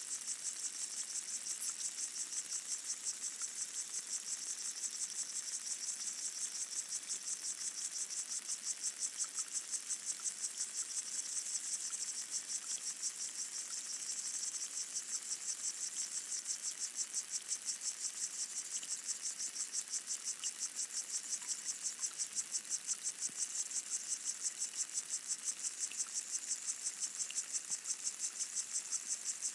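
Underwater chorus of Micronecta pygmy water boatmen stridulating, picked up by hydrophones: a dense, high-pitched buzz that pulses rapidly and evenly. Faint scattered ticks lie beneath it, presumed to be pondweed (Potamogeton) photosynthesis sounds.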